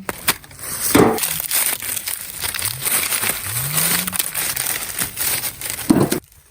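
Dry plant material rustling and crackling under handling, with a heavier snap about a second in and another near the end; the sound cuts off suddenly just before the end.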